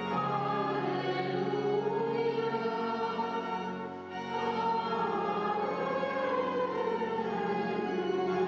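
Choral music: a choir singing slow, sustained chords, briefly softer about four seconds in.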